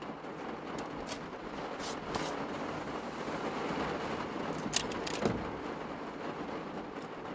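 Heavy rain hammering down on a small car's roof, heard inside the car as a steady hiss. A few sharp clicks and knocks of things being handled come through it, the loudest two near five seconds in.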